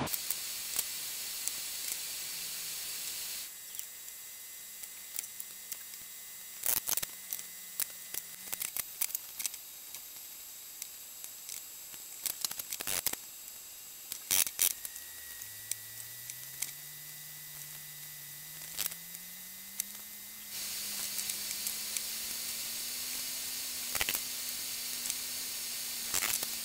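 Steady room-tone hiss with scattered small knocks and clicks as wooden chair parts fitted with dowels are picked up, turned and set down on the workbench. A faint low hum rises slowly in pitch in the second half.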